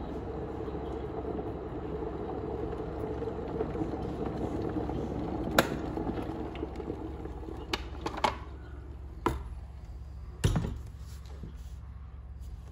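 Morphy Richards electric kettle coming to the boil with a steady rumble that dies away after it clicks off about halfway through. A few light knocks follow, then a heavier clunk as the kettle is lifted off its base.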